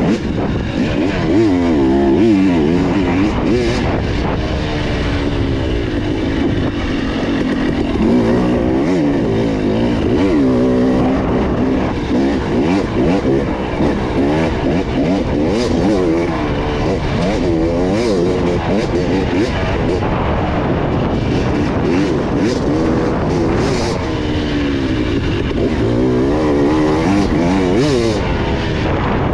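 Off-road motorcycle engine working along a trail, its pitch rising and falling again and again as the throttle is opened and closed, with brief scattered crackles over it.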